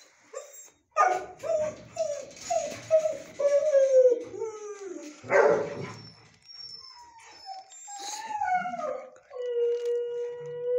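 A dog in a shelter kennel whining in a series of short cries that fall in pitch, about two a second, with one rough bark about halfway. Longer wavering cries follow, then a steady howl held for the last second and a half.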